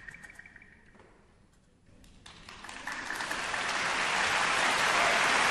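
The last ringing notes of a Chinese drum ensemble's piece fade out, then after a short hush audience applause starts about two seconds in and swells until it is loud.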